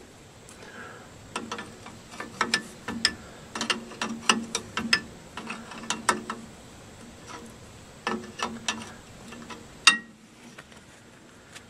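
A metal wrench clicking and clinking on a brake line tube nut at a drum brake wheel cylinder as it is worked a little at a time. There is a run of irregular sharp clicks, a few more after a pause, and one louder clack near the end. The fitting is hard to turn because rust and dirt on the tube make it a snug fit.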